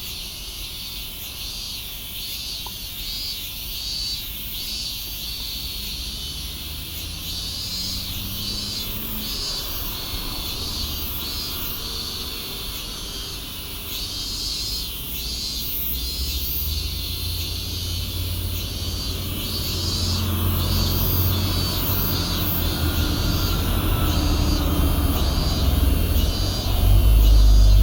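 Outdoor ambience: a high-pitched pulsing chorus repeating about twice a second, under a low rumble that grows steadily louder in the second half.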